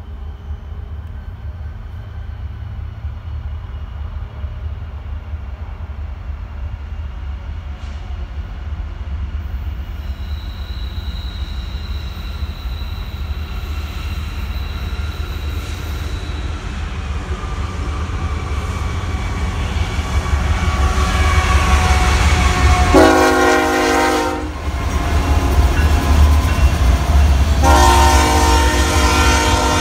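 Diesel freight train led by a BNSF ES44C4 locomotive approaching, its engine rumble growing louder as it nears. The lead locomotive sounds its horn twice: a blast of about a second and a half late on, then another near the end as it arrives.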